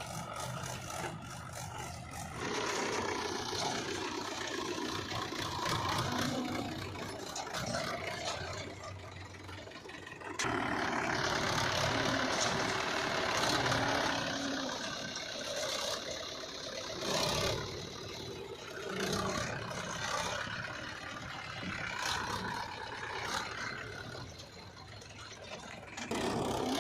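Diesel engines of heavy earth-moving machinery running and working, the level rising and falling, with sudden jumps in loudness about two and ten seconds in.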